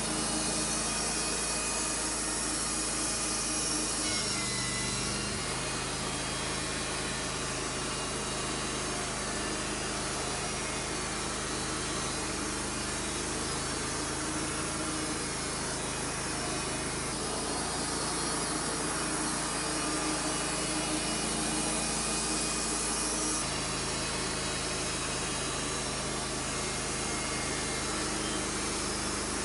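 Portable bandsaw sawmill cutting a Douglas fir log, its band blade sawing steadily with the mill's engine running underneath. The engine note changes about four seconds in and again near the end.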